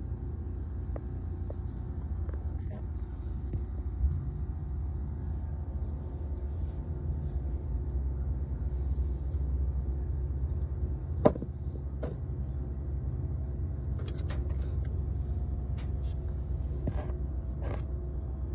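Steady low rumble, with a few sharp clicks and knocks scattered through it, the loudest about halfway through and a small cluster near the end.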